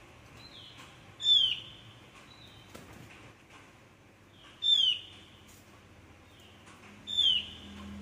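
Caged opior jawa (cucak gentong, Javan grey-throated white-eye) calling: three loud, sharp notes about every three seconds, each sliding quickly downward, with softer calls of the same kind between them.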